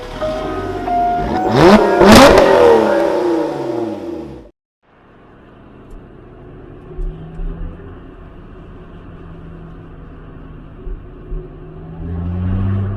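Lotus Exige sports car passing at speed, its engine note sweeping down in pitch as it goes by, over the tail of background music. After a sudden cut, the engine runs steadily at low revs, picking up a little near the end.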